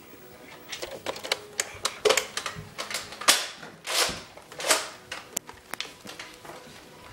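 Nerf blasters being primed and fired during a play fight: an irregular run of clicks, knocks and sharp pops, busiest and loudest in the middle.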